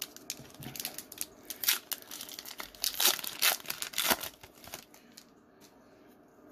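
Foil Pokémon booster pack wrapper being torn open and crinkled by hand: a run of sharp crackles and rips that stops about four seconds in.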